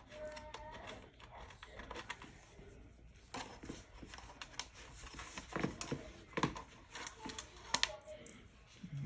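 A hand ratchet clicking in short, irregular runs with light metallic rattles as a stubborn screw is worked loose.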